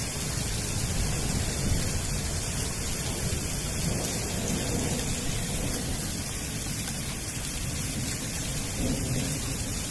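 Torrential thunderstorm rain pouring down: a dense, steady hiss with a continuous low rumble underneath.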